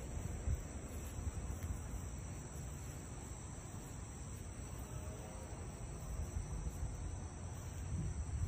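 Crickets and other night insects trilling steadily in a high, even chorus, over a low rumble on the microphone.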